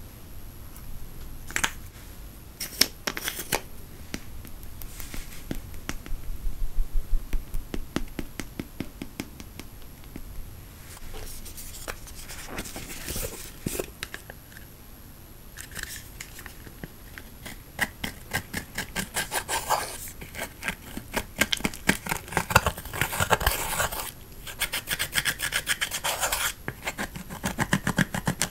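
Pressed eyeshadow being scraped and crumbled out of its palette pans with a small metal-tipped tool. The scratching is quick and dense through the second half, after scattered clicks and taps earlier on.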